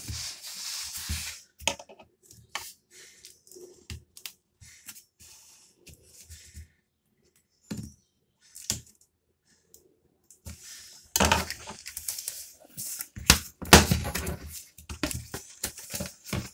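A cardboard mailer being opened by hand: scattered scrapes, clicks and short tears of cardboard and tape, turning louder and busier about eleven seconds in as the flaps are pulled apart.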